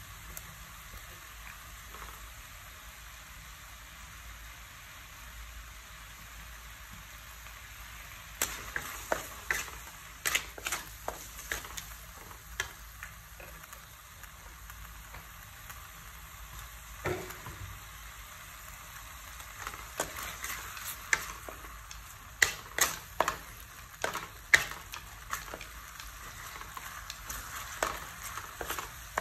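Beef and garlic sizzling in sauce in a metal wok, a steady frying hiss. From about eight seconds in, a wooden spatula knocks and scrapes against the pan in quick irregular strokes as the meat is stirred.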